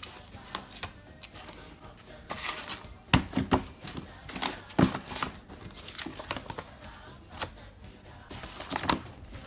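Packaging being handled while a new electric pressure cooker is unboxed: irregular rustling and tearing with sharp clicks and knocks, the loudest about three seconds in and near the end.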